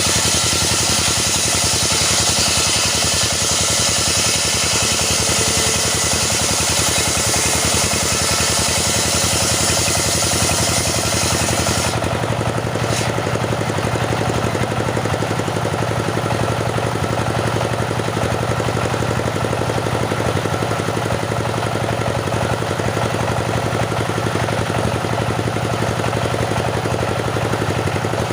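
Engine-driven saw running under load as it cuts teak, with a bright hissing cutting noise over the engine. About twelve seconds in the cutting noise stops suddenly and the engine keeps running steadily.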